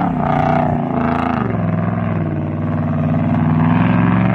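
Motor vehicle engine revving. Its pitch wavers over the first second or so, then settles into a steady drone that rises slightly near the end.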